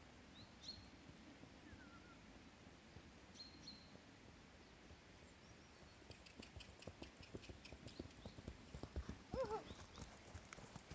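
Hoofbeats of a horse on grass turf, starting faintly about six seconds in and growing louder as the horse comes closer. A few faint bird chirps come earlier.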